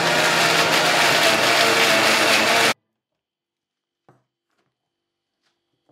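National electric mixer grinder running at full speed, grinding onion, garlic and cumin into a paste with a steady loud whir. It cuts off abruptly nearly three seconds in.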